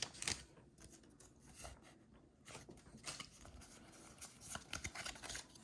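Faint rustling and small scattered clicks of Pokémon trading cards and booster-pack foil being handled.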